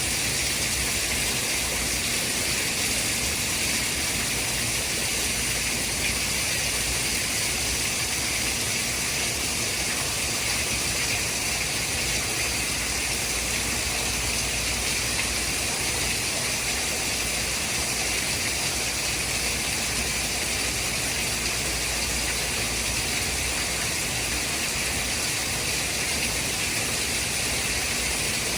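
Steady white noise: an even, unchanging hiss, brightest in the upper range, with a faint low rumble underneath.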